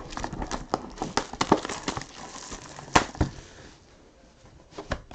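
Hands handling a cardboard 2019 Clearly Authentic trading-card box: a run of small clicks, scratches and taps, with one louder knock about three seconds in.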